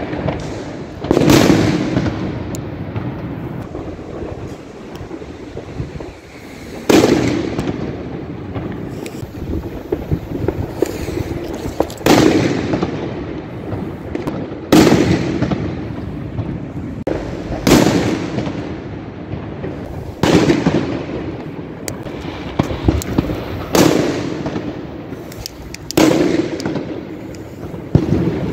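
Fireworks going off: about nine loud bangs, a few seconds apart and closer together in the second half, each trailing off in a long echo, with smaller crackles and pops in between.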